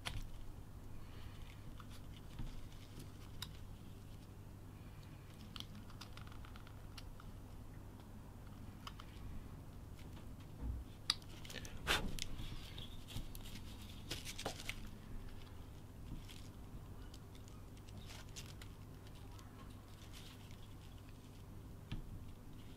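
Small detail knife cutting into wood: faint, scattered scraping and clicking cuts, busier and louder for a few seconds about halfway through, over a low steady hum.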